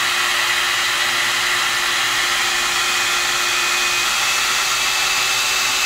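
Amika hot-air blower brush running steadily, a continuous rush of air with a high whine, as it is drawn slowly through a section of hair to blow it dry and straight.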